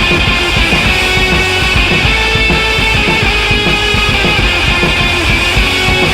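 Loud rock music with distorted electric guitar and a steady driving beat.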